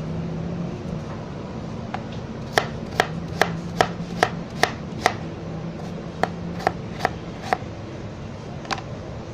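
Kitchen knife chopping fresh ginger into cubes on a cutting board: about a dozen sharp knife strikes, roughly two a second, over a few seconds, with a couple of single cuts before and after.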